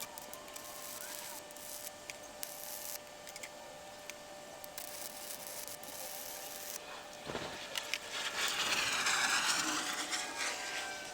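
Workshop handling sounds: scattered light clicks and knocks, a thump about seven seconds in, then about three seconds of louder rasping, scraping noise.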